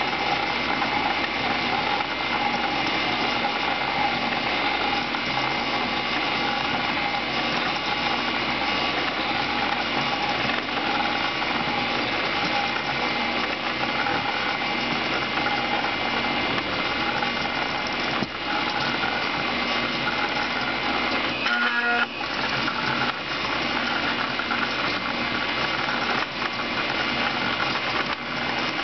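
Homemade CNC coil winder running steadily, its motors whining as the spindle winds 24-gauge Litz wire onto a coil form. A short clatter about three-quarters of the way through.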